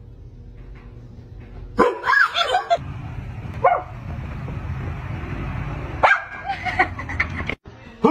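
Barking: short barks and yips in three bursts, about two seconds in, near four seconds, and again around six to seven seconds, over a low steady hum.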